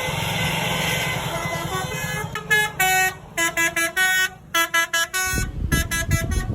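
Bus's multi-tone 'telolet' basuri horn playing a quick run of short musical notes, each cut off sharply, starting about two seconds in after steady traffic and engine noise. A deep engine rumble comes in near the end.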